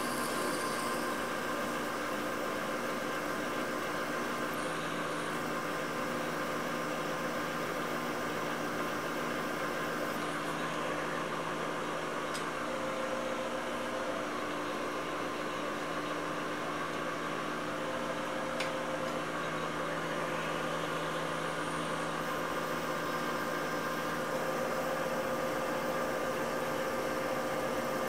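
Emco Maximat V13 lathe running steadily with a hum and several held tones while a 31/64-inch twist drill in the tailstock bores into the spinning workpiece. Two faint ticks come through partway in.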